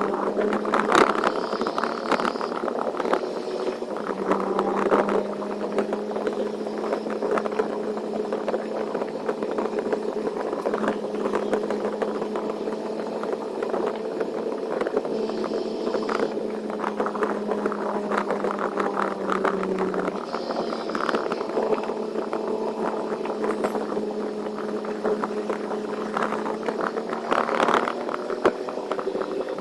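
Semi-truck engine running at a steady drone, its pitch shifting slightly now and then, with frequent small rattles and clicks over it.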